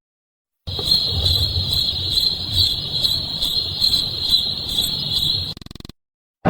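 Crickets chirping: a steady high trill with an even pulse, over a low background rumble, starting about half a second in and lasting about five seconds before breaking into a brief fast buzz and cutting off.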